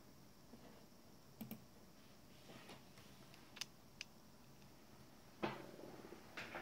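A few faint, sharp clicks of a computer mouse against quiet room tone, with a louder knock and brief rustle near the end.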